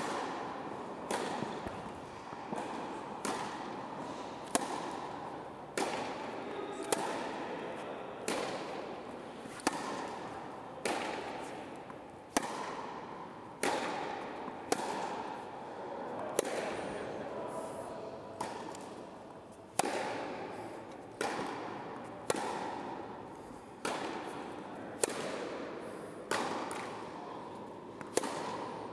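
Tennis rally: a tennis ball struck by rackets and bouncing on the court, a sharp pop about every second, each echoing in the indoor hall.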